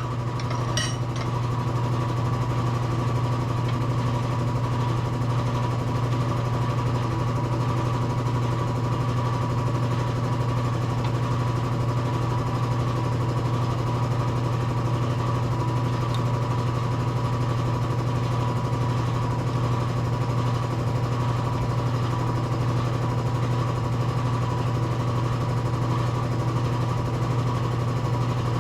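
A motor running steadily with an even, engine-like hum that does not change. There are a few sharp metallic clinks right at the start.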